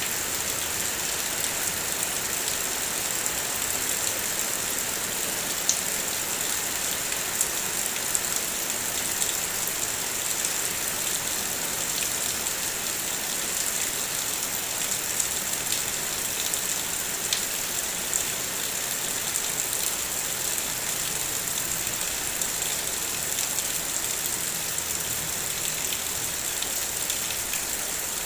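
Heavy rain falling steadily: a dense, even hiss with scattered sharper taps of single drops.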